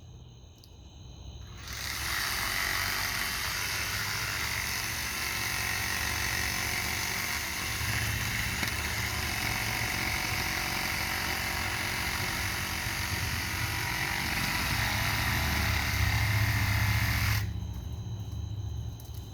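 Craftsman 20V brushless cordless reciprocating saw cutting into a tree trunk: it starts about two seconds in, runs steadily for about fifteen seconds, then stops.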